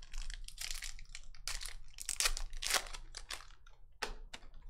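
A stack of trading cards being slid and thumbed through by hand: a quick, irregular run of papery swishes and scrapes as card slides over card.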